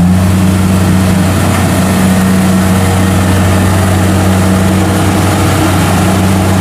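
Rice combine harvester's diesel engine running steadily under load as its crawler tracks push through deep mud.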